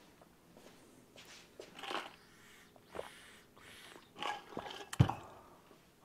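Steel pushrods in an Allis-Chalmers C engine block clicking and knocking in their lifter sockets as they are lubed and worked into place: a few short clicks, with the loudest knock about five seconds in.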